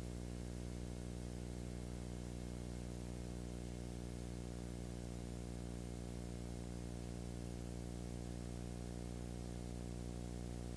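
Steady electrical hum with a buzzy stack of overtones, under an even hiss, and nothing else: the empty soundtrack of a silent home-movie film transfer.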